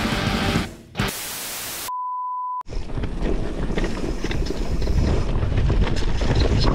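Music fades out, then about a second of hissing white-noise static and a brief steady high beep serve as an editing transition. After that comes wind rushing over the microphone, with rattling clicks from a mountain bike riding down a dirt trail.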